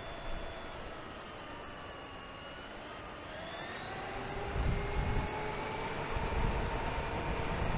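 Electric motor whine of the RC monster truck, dipping slightly in pitch and then rising about three seconds in as it speeds up, with gusts of wind rumble on the microphone.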